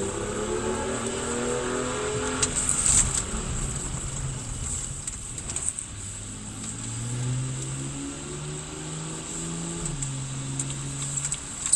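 Car engine heard from inside the cabin on track, rising in pitch as it accelerates, easing off through the middle, then pulling up again with a few steps in pitch as it changes speed.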